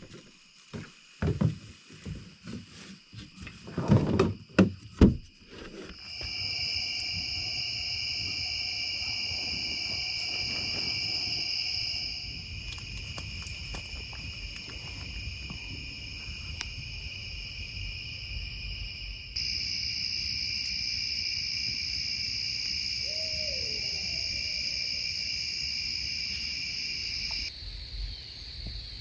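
A few irregular knocks and thumps, then a steady chorus of crickets or other night insects: a high, even trill at several pitches over a low rumble. The chorus shifts abruptly a few times, and a brief faint call comes late on.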